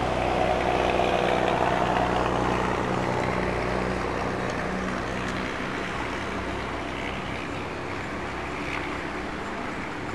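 Steady engine and road-traffic noise, with a low engine hum that fades out about halfway through.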